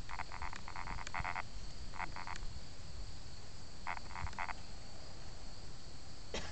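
Frogs calling: short, rapidly pulsed croaks in clusters of two to four, repeated every second or so, over a faint steady high hum.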